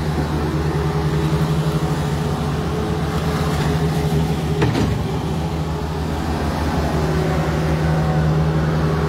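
A vehicle's engine running steadily, with a short knock about four and a half seconds in.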